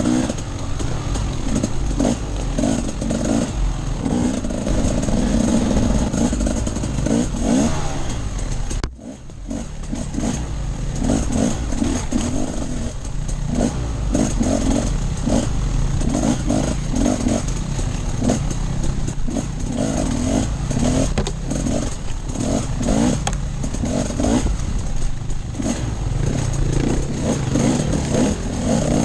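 Off-road dirt bike engine running under load, revving up and down with the throttle through the ride. About nine seconds in the sound briefly drops out before picking up again.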